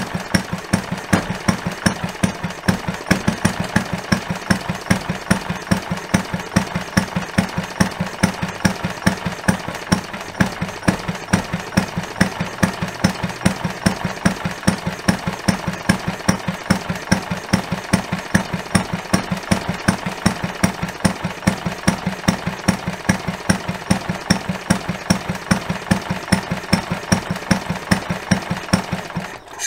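A 1941 Briggs & Stratton Model PC single-cylinder four-stroke engine idling with a steady, even firing beat, then cutting out just before the end.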